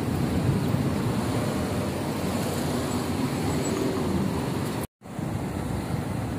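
Steady road traffic noise of a busy city street: cars and motorbikes running past. The sound drops out completely for an instant about five seconds in, then the traffic noise resumes.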